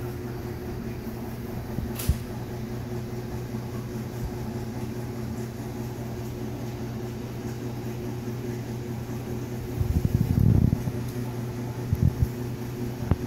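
A steady mechanical hum, with a sharp click about two seconds in. Near the end come a second or so of low rumbling and a few soft thumps.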